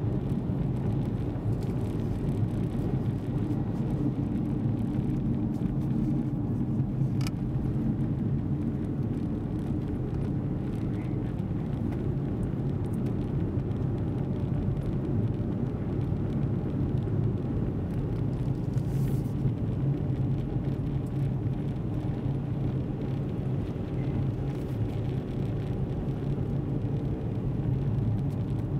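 Steady low drone of a car's engine and tyres on the road, heard from inside the cabin while driving at an even speed.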